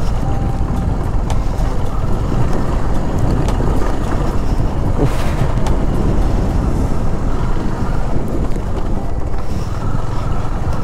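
Wind buffeting the microphone over a KTM Duke 250 motorcycle's single-cylinder engine running steadily, with tyres rolling on a loose dirt road and a scatter of small clicks.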